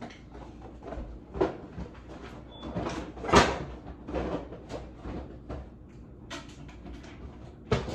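Kitchen handling noises: a string of knocks and clatters, as of cookware and cupboard doors being handled, the loudest about three and a half seconds in.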